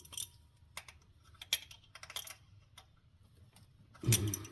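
Hand tools clicking and clinking against metal in irregular, separate clicks, with a louder dull bump near the end, as the new oil pressure switch is fitted.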